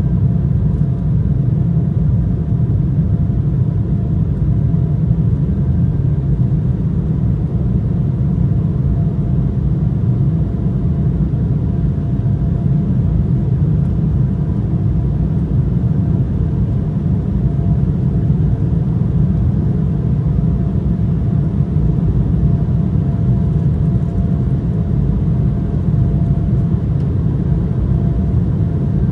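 Steady cabin noise of an Embraer 175 airliner in flight: a low rumble of airflow and its turbofan engines, with faint steady engine tones above it.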